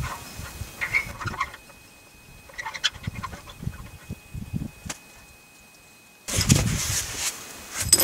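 Scattered light knocks and rustling as hands handle the water heater's copper pipe and fittings. About six seconds in, a louder rushing noise with knocks starts suddenly.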